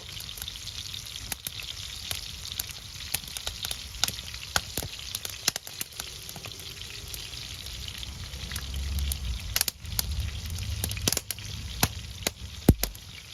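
Fish frying in oil in a pan over a wood fire: a steady sizzle with irregular sharp pops and cracks from the burning firewood, which the cook puts down to the wood or the sap under its bark. A low rumble swells for a few seconds past the middle.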